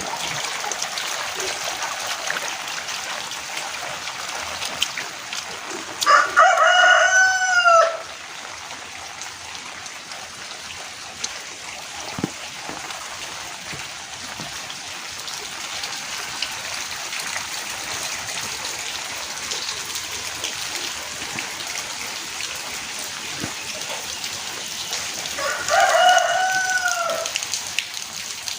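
Steady heavy rain, with a rooster crowing twice: once about six seconds in and again near the end, each crow about two seconds long.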